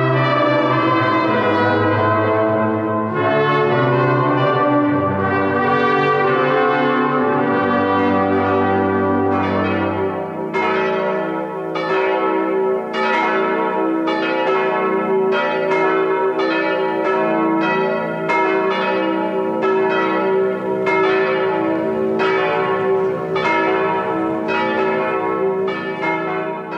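A brass ensemble with tuba holds out the closing chords of a piece, ending about ten seconds in. A peal of church bells then rings on, with overlapping strokes about twice a second.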